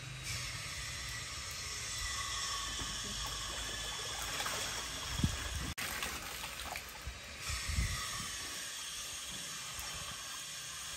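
Water running steadily, with a couple of short knocks near the middle.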